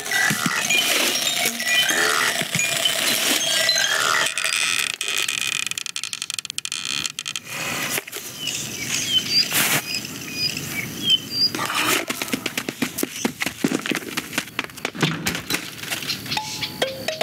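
Animated-film sound effects without music or dialogue: a busy run of small squeaks and chirps, clicks and light clattering, with a brief rushing noise about four to seven seconds in.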